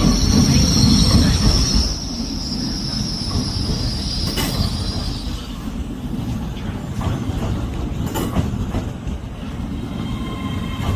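Train wheels squealing on the rails over a steady rumble. A high squeal fades out about five seconds in, a few sharp clicks follow, and a new squeal with several tones starts near the end.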